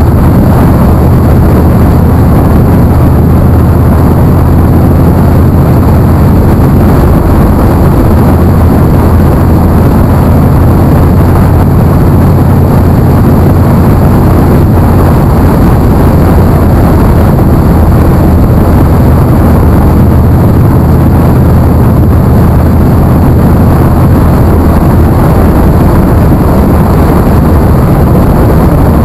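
Motorcycle engine running at a steady cruising speed, with wind rushing over the bike-mounted camera's microphone. The sound is loud and unchanging, with a steady low hum under a dense rush.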